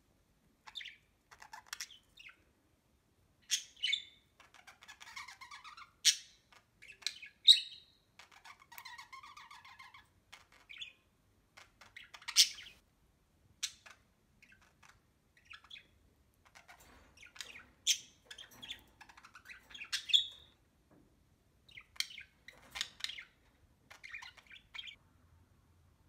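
Budgies chirping: short sharp calls scattered throughout, with softer warbling chatter in a couple of stretches.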